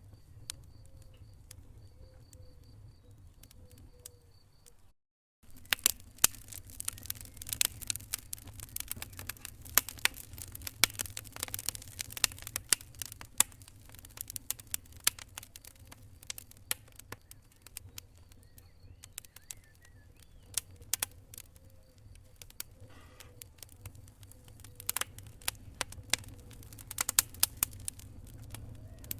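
Wood fire crackling, with many sharp pops over a low steady rumble; the sound drops out completely for a split second about five seconds in, and the popping is busier after it.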